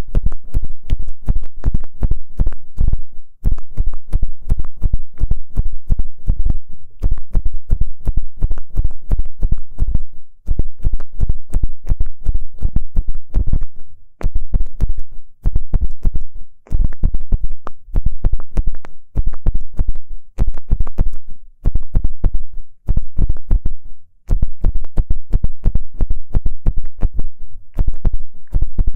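Ear pick scratching and scraping inside a microphone's ear: fast, close, bass-heavy runs of scratches broken by brief pauses every few seconds.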